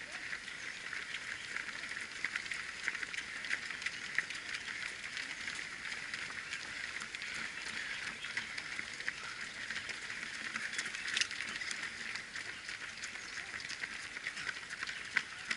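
Footsteps of many runners on the road: continuous shoe scuffing with many sharp individual footfalls, over a steady high hiss.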